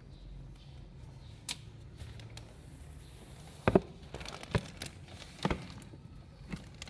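A few scattered short knocks and clicks over a low steady hum, about five in all, the loudest a little past the middle.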